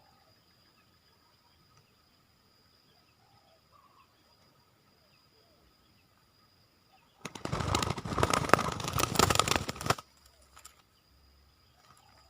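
A dove's wings flapping hard in a rapid clattering burst that lasts about three seconds, starting a little past the middle.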